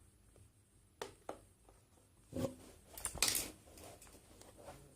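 Seal stickers on a small cardboard product box being cut open: a couple of sharp clicks about a second in, then short rasping cuts a little past the middle.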